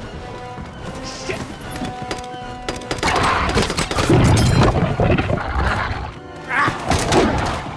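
Film soundtrack: tense score of held notes, swelling about three seconds in into a louder, denser passage with heavy crashes and thuds.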